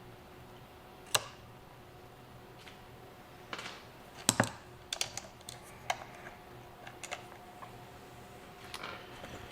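Scattered sharp clicks and light knocks from hard parts and hand tools being handled while battery leads are disconnected inside a jump box. One click comes about a second in, then a busier cluster in the middle with the loudest pair, then a few softer taps.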